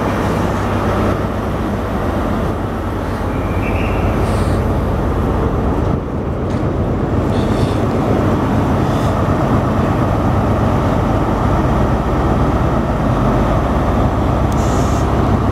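Class 43 HST power cars' MTU 16V4000 diesel engines running at idle, a steady deep hum with no change in pitch.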